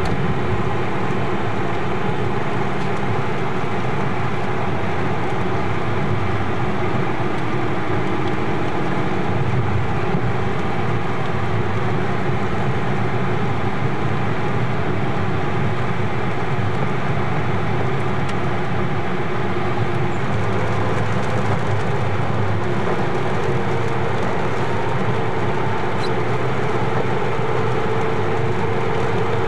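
Steady road noise inside a moving car's cabin: engine and tyres on a rain-wet road, with a low, even rumble and hiss.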